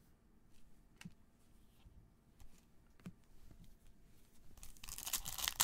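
A few faint clicks of cards and packs handled in gloved hands, then, from about two-thirds of the way in, the crinkling and tearing of a foil trading-card pack wrapper being opened, getting louder toward the end.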